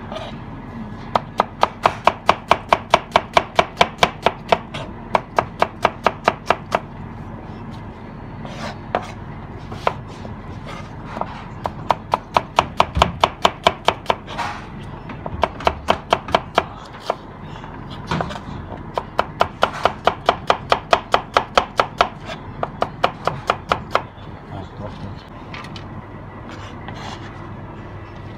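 Chef's knife slicing onions on a plastic cutting board: quick runs of sharp knocks of the blade on the board, about five a second, broken by short pauses.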